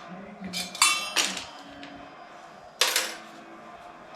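Steel wheel spokes clinking as they are pulled from a hub-motor rim: three sharp metallic clinks with a brief ring, the last about three seconds in.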